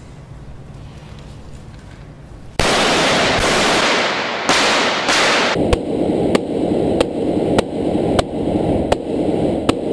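AK-47 rifle firing fully automatic at an armored Mercedes SUV's bulletproof windshield: a loud continuous burst starts about two and a half seconds in and lasts about three seconds. It is then heard muffled, as from inside the car's cabin, with sharp cracks about every half second as rounds strike the glass.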